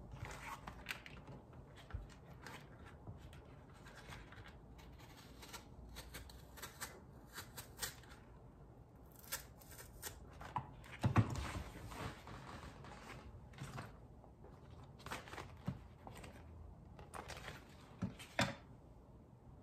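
Serrated kitchen knife cutting the stiff centre stems out of collard green leaves on a wooden cutting board: quiet, scattered crisp cuts and crackles of the leaves, with a louder cluster about eleven seconds in.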